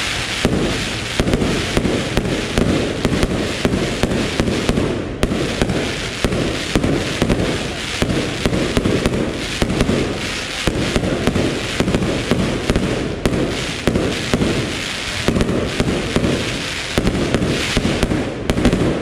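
Aerial fireworks display: a continuous rapid barrage of bangs and crackling from many small shells bursting overhead.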